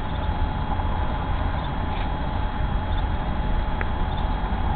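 Steady outdoor background noise: a low rumble under a hiss, with a faint steady high hum, and one brief faint chirp about four seconds in.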